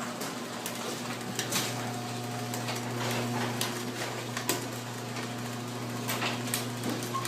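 Sears Craftsman chain-drive garage door opener running as it closes the door: a steady motor hum with irregular clicks and rattles from the chain and door.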